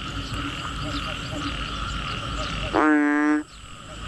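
Steady chorus of frogs and insects, with small repeating low croaks. About three seconds in, one loud, steady-pitched frog call lasts just over half a second.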